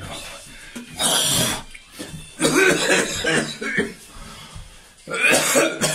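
A man coughing hard in three fits: a short one about a second in, a longer one from about two and a half seconds, and another near the end.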